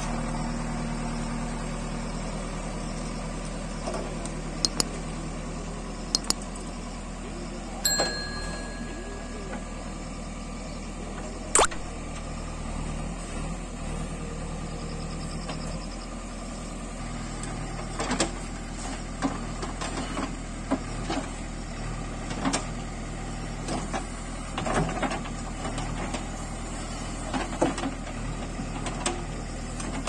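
JCB 3DX backhoe loader's diesel engine running steadily as the backhoe arm digs soil, with scattered clanks and knocks from the bucket and arm, more frequent in the second half. A brief high squeal sounds about eight seconds in.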